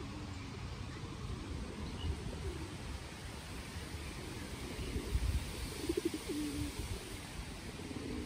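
Feral pigeons cooing: several low, wavering coos, the clearest about six seconds in, with low thumps underneath.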